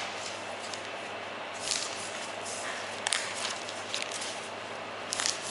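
Paper rustling and a few light clicks and taps as a receipt book is handled on a wooden counter, over steady background noise.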